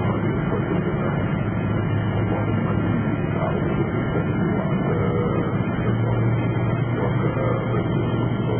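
Passenger airliner's engines and airflow heard from inside the cabin: a steady, unbroken rumble with a constant low hum.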